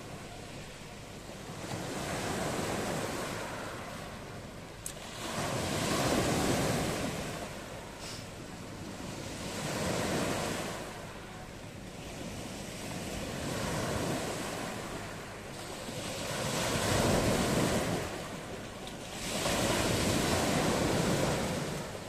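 Sea surf breaking and washing over a pebble beach, the waves swelling in and drawing back about every three to four seconds.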